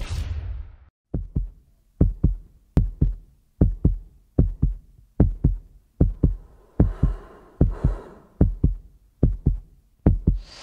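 Heartbeat sound effect: pairs of low thumps (lub-dub) repeating about every 0.8 seconds, after an opening hit with a fading hiss. A soft hiss swells beneath the beats about halfway through.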